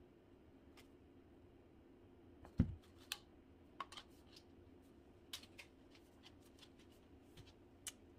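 Plastic segments of a detachable hula hoop clicking and knocking as they are handled and fitted together: a thump about two and a half seconds in, then a scatter of sharp clicks. A steady low hum runs underneath.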